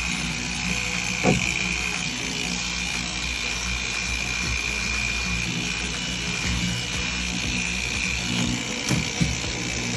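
Power tool running steadily with a constant high whine, over background music, with a sharp knock about a second in and two more near the end.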